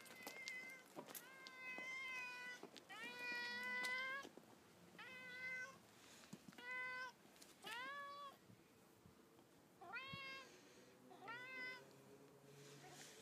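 Domestic cat giving a run of about seven loud, drawn-out greeting meows, each rising in pitch at the start and then holding, with short pauses between them.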